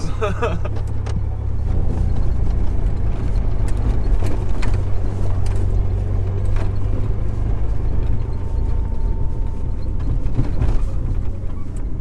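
Jeep Wrangler TJ with its 4.0-litre straight-six driving along a rough road: a steady low engine and road rumble, with a few short knocks and rattles as it goes over bumps.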